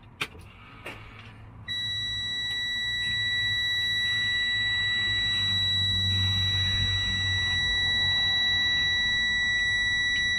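Western Star semi-truck's dashboard warning buzzer, switched on with the ignition: a click, then about two seconds in a loud, steady, high single-tone buzz that holds without a break, over a low steady hum.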